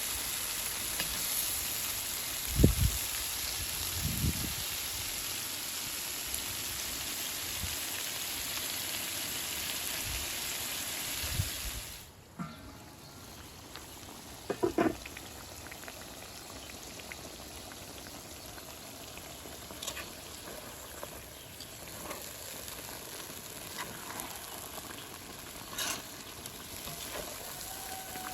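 Chicken stew sizzling and bubbling in a cauldron over a fire, with a steady hiss and a couple of dull thumps. About twelve seconds in the hiss suddenly drops quieter, and scattered clinks and a knock follow.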